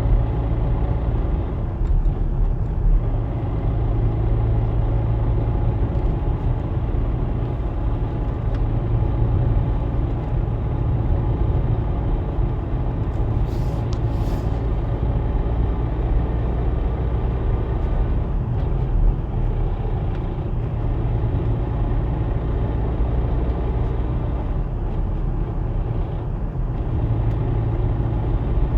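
Volkswagen Passat B6 2.0 FSI four-cylinder petrol car driving in gear, with steady engine and drivetrain noise and a rattle. The rattle comes only in gear between about 25 and 110 km/h and goes away in neutral or with the clutch pressed, and it appeared some 10,000 km after a new clutch and flywheel were fitted.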